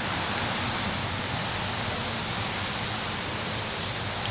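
Pouring rain falling steadily on wet pavement, an even hiss.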